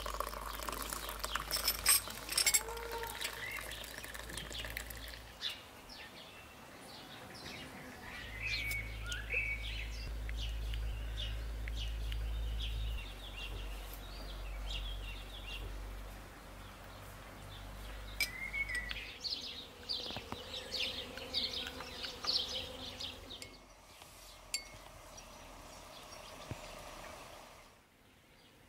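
Teaspoons clinking against glass jam dishes and porcelain mugs, with small birds chirping. Tea runs from a samovar tap into a mug at the start.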